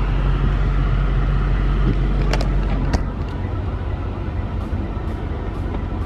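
Tow vehicle's engine running steadily as it pulls away with a car on the trailer, with two sharp knocks around the middle, after which the engine note drops. Faint ticks about twice a second near the end.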